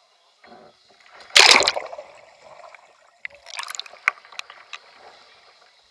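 Kayak capsizing into the pool during a roll practice, with one loud splash about a second and a half in, then water sloshing and a second burst of splashing about two seconds later as the paddler sweeps the Greenland paddle and rolls back up.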